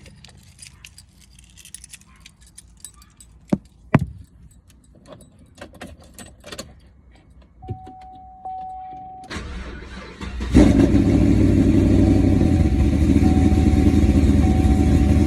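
Keys jangling and small clicks, then a short steady beep. About nine seconds in, the starter cranks the 2015 Camaro SS's cammed 6.2-litre V8, fitted with a newly installed cold air intake. The engine catches about a second later and runs loud and steady.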